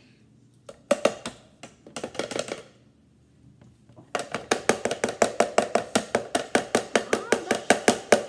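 Ice cream scoop knocked against the rim of a blender jar to shake off stuck ice cream: a few sharp knocks, then from about four seconds in a fast, even run of about five knocks a second.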